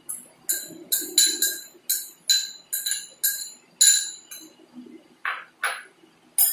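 Metal spoon clinking against a ceramic bowl as sprouted green gram is spooned out: about a dozen quick ringing clinks over four seconds, then two short scraping sounds and a final clink.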